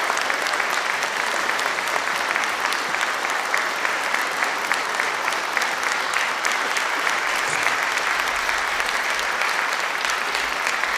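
Audience applauding steadily: dense, even clapping with no break.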